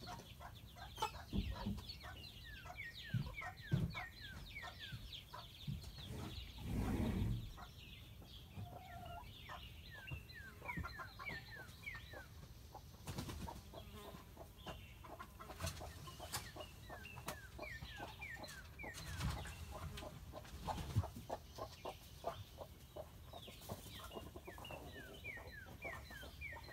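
A crowd of young chicks peeping steadily in the coop, a stream of short, high, downward-sliding peeps several times a second. Occasional thumps and knocks sound through it, the loudest a low rumble about seven seconds in.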